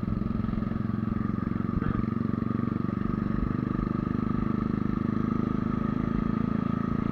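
Motorcycle engine running at steady revs while riding, heard from on the bike; its pitch holds even with no revving or gear changes.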